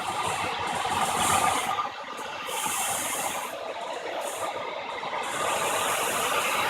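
Hair dryer running, a steady rush of blown air whose loudness swells and dips.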